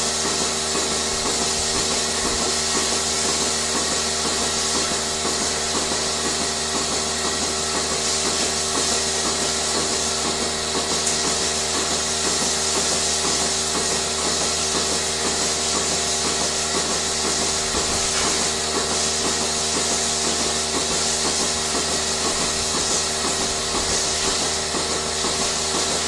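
Electric sheep-shearing handpiece running steadily while clipping a sheep's fleece, a continuous motor hum with a fast, even rhythm from the reciprocating cutter.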